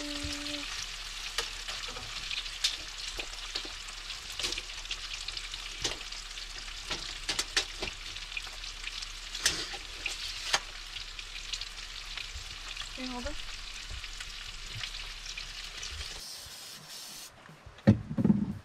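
Food sizzling in a frying pan, a steady hiss with scattered pops and spatters. It stops near the end, followed by a couple of loud knocks.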